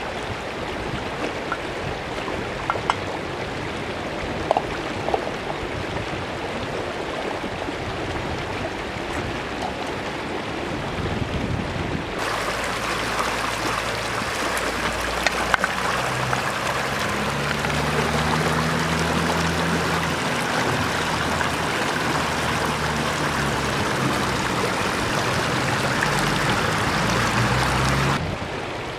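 Shallow stream running over stones: a steady rush of water that becomes louder and brighter about twelve seconds in, with a few small clicks in the first seconds.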